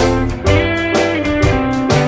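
Background music: a light guitar tune over a bass line, with a steady beat of about two notes a second.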